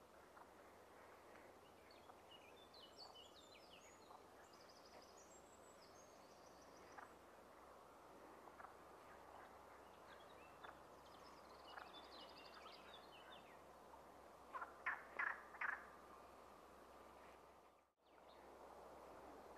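Faint flowing river water with small birds singing in the background. About three-quarters through, four short sharp sounds come in quick succession, and the sound cuts out briefly near the end.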